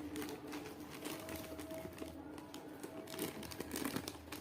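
Packaging crinkling and rustling as it is handled, with scattered small clicks and knocks.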